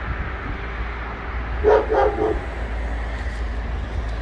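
A dog barking, a quick run of three barks a little under two seconds in, over a steady low rumble.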